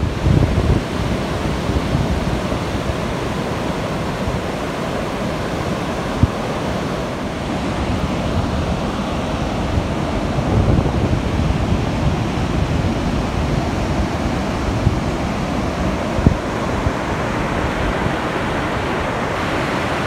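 Surf breaking on a sandy beach, with wind buffeting the microphone in gusts and two brief thumps, one about six seconds in and one about sixteen seconds in.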